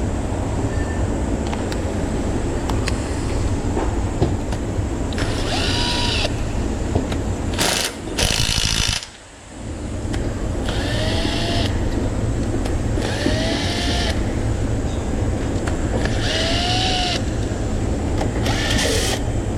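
A cordless impact wrench runs in several short bursts, its motor pitch rising and falling each time, as it works on the crankshaft pulley bolt of a Honda K24 engine. A steady shop hum runs underneath.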